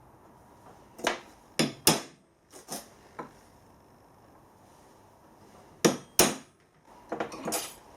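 Hammer striking a half-inch transfer punch to mark hole centres on steel plate: about five sharp strikes in the first few seconds, a pause, two more near the six-second mark, then some light clatter near the end.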